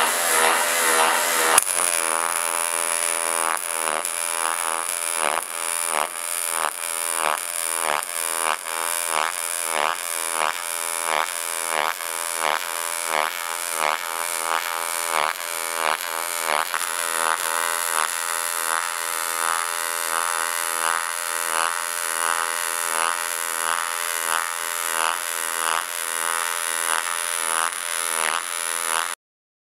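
Decapower ULTRAMIG pulse MIG welding arc on aluminium: a steady buzz with a regular throbbing beat. It starts with a click about two seconds in and cuts off abruptly near the end.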